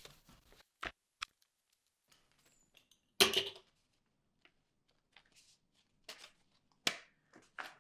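Small paper cards being handled: a string of short clicks and rustles, the loudest about three seconds in.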